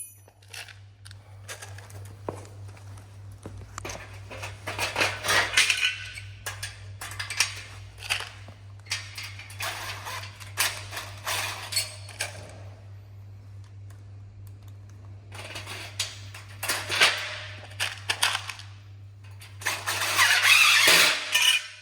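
Metal greenhouse frame parts and fasteners clattering, clinking and scraping as they are handled during assembly. The sound comes in irregular bursts, loudest near the end, over a steady low hum.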